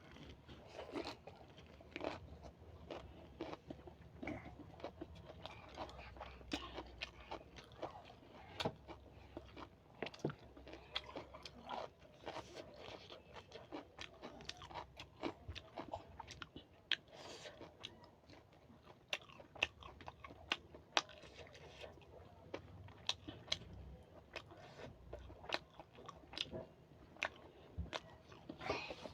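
Close-miked eating: irregular crunching, biting and chewing sounds, with sharp clicky bites every second or so.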